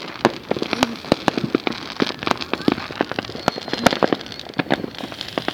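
Fireworks crackling: a dense, irregular run of sharp pops, several a second.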